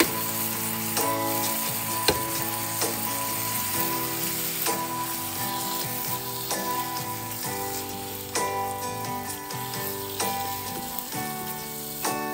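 Food frying and sizzling in a pan, with scattered clicks, under background music of held chords.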